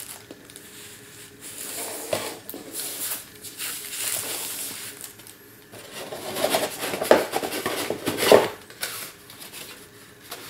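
Clear plastic packaging bag rustling and crinkling as it is unwrapped, then rustling and a couple of knocks from the cardboard box and its black plastic insert tray being handled and lifted out, in the second half.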